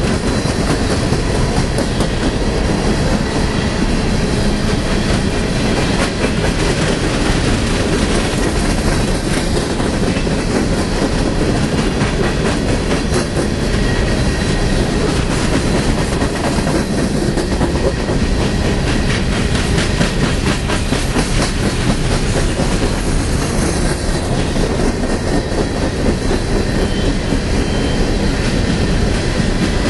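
Coal train hopper cars rolling steadily past close by: a loud, continuous rumble of steel wheels on rail with repeated clickety-clack as the wheels cross the rail joints.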